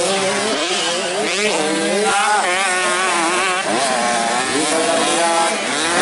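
Motocross dirt bike engines revving hard, the pitch climbing and dropping again and again with throttle and gear changes.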